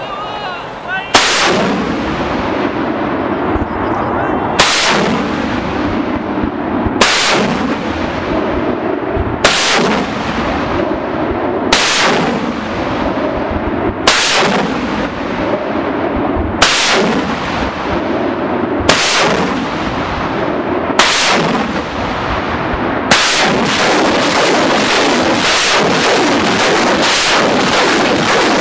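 BM-21 Grad multiple rocket launcher firing 122 mm rockets: each launch is a sharp blast followed by a rushing roar that fades. Nine single launches come about every two and a half seconds, then, about 23 seconds in, the rockets leave in rapid succession.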